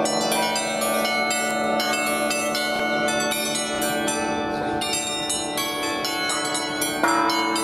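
The Federation Bells, an installation of upturned bells on poles, playing a tune: a stream of struck bell notes at different pitches, each ringing on and overlapping the next, with a louder strike near the end.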